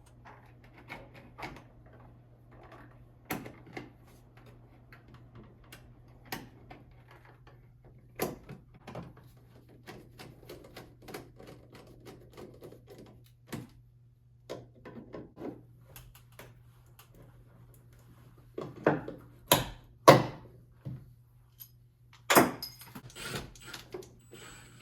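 Scattered clicks, taps and knocks of hand work on electrical cable and a box, with a cluster of louder knocks in the last few seconds, over a faint steady low hum.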